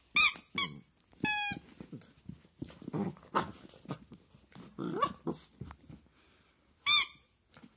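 A loud French-fries-shaped squeaky toy squeaking as an 8-week-old Dalmatian puppy bites and squeezes it: three sharp squeaks in the first second and a half, the third drawn out, then another squeak near the end. Between them come softer sounds of the puppy mouthing and scuffling, with low growls.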